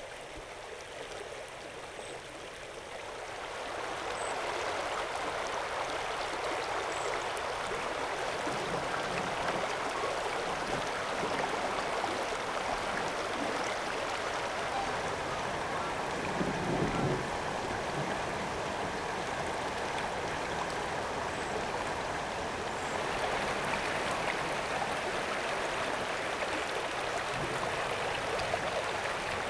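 Yampa River water rushing steadily in a continuous wash. It swells louder a few seconds in, with a brief deeper surge around the middle.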